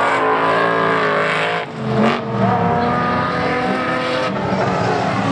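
Engines of several dirt-track racing sedans running hard at racing revs, their pitch rising and falling as the cars accelerate and back off through the corners. There is a brief drop in level about two seconds in.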